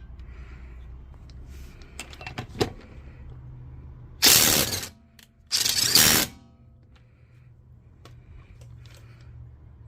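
Ridgid impact driver converted to a 1/2-inch impact wrench, run in two short bursts of hammering about a second apart. A few sharp clicks of handling come before the bursts.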